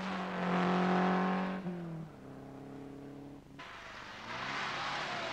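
Porsche sports car engine running hard on a hill climb. Its pitch steps down and the sound fades about two seconds in, then it grows louder again near the end with a rushing hiss as the car comes closer.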